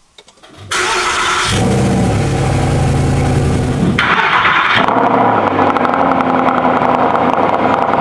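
Mercedes-Benz SLS AMG's 6.2-litre V8 cold-starting: it catches just under a second in and then runs steadily and loudly at idle as it warms up.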